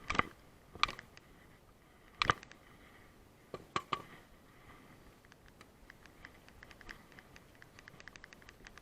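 A few sharp knocks and clicks, then a run of faint quick ticks, likely from fishing gear being handled in a small boat.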